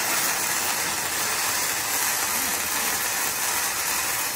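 KOBE MIG-272 PRO MIG welder running a bead on thick steel plate: the steady sizzling of the welding arc, held without a break.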